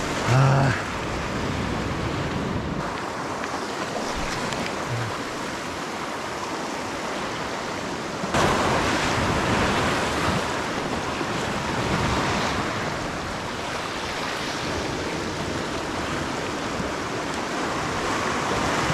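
Ocean waves washing and surging over shoreline rocks, with wind buffeting the microphone. A brief loud burst comes right at the start, and a wave surges in louder about eight seconds in.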